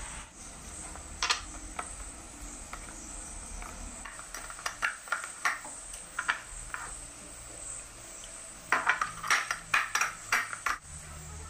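Hands mixing and kneading dough in a stainless steel bowl: scattered clicks and scrapes of fingers and dough against the metal, coming thick and fast near the end.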